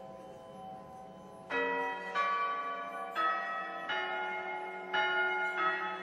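Church tower bells rung full circle by rope. After a fading hum, six strikes begin about a second and a half in, falling in three pairs, each bell ringing on over the last.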